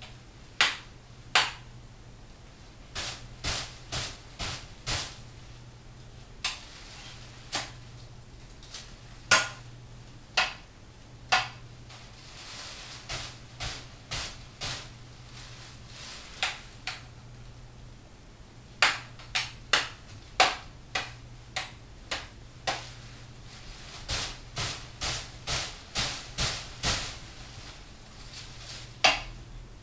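Sharp knocks and clicks in irregular clusters of two to five, from a kitchen knife striking a training dummy in quick slash-and-stab combinations. A steady low hum runs underneath.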